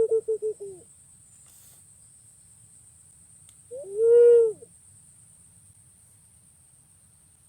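Punai pink green pigeon calling. A rapid run of low, pulsed cooing notes trails off under a second in, then about four seconds in comes one longer whistled coo that rises and falls.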